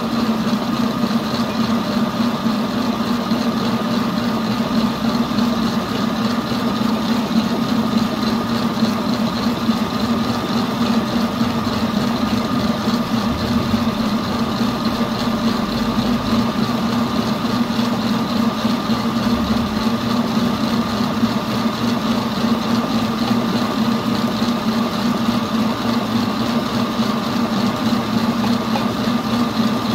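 Electric mixer motor running with a steady hum, beating egg whites at stiff-peak stage while yolks are added one at a time.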